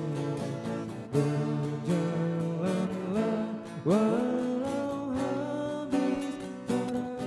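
Two acoustic guitars playing a song together, chords ringing with changes about every second.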